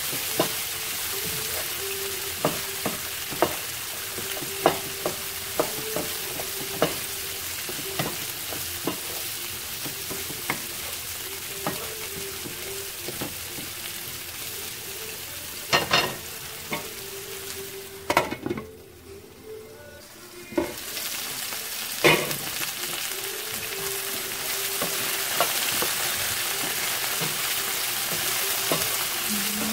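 Green beans and beet slices sizzling in oil in a frying pan, stirred with a wooden spatula that clicks against the pan about once a second. Past the middle come a few louder knocks, and the sizzle drops away for about two seconds before it returns.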